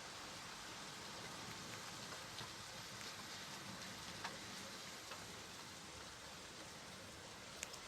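Steady rain falling, an even hiss with scattered distinct drops striking a surface.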